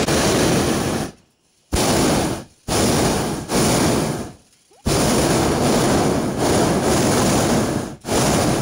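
Hot air balloon's propane burner firing in a series of blasts with short quiet gaps between them, the longest blast about three seconds.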